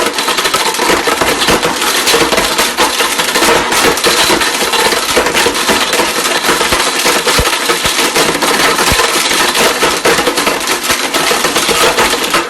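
Mixer grinder running flat out with an iPhone 6s inside being smashed apart: a dense, harsh clatter of broken glass, metal and plastic pieces hitting the jar over the motor's noise.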